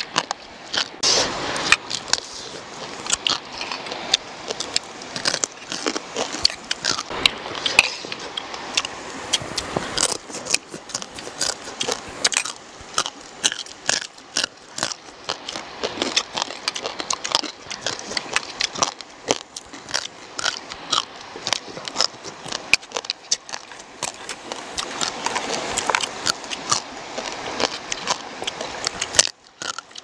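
Eating sounds: chewing and crunching field crab close to the microphone, with many sharp clicks of metal spoons on ceramic plates.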